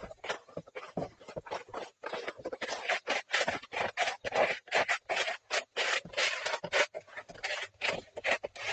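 Hands scraping and rubbing across wet, gritty concrete as it is spread and levelled. The strokes come quick and repeated, about three a second.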